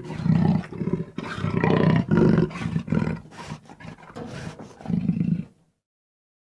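Tyrannosaurus rex roar sound effect: a run of deep, rumbling roars and growls in uneven bursts, weakening toward the end and cutting off about five and a half seconds in.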